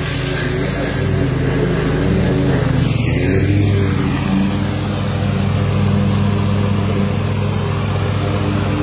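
Small engine of a ride-on oil-palm circle weeder running steadily as the machine drives along, its pitch holding fairly even.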